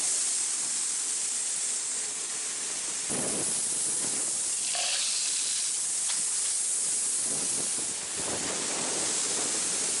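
Shelled corn pouring from a truck's hopper into a grated dump pit: a steady rushing hiss, fuller from about three seconds in.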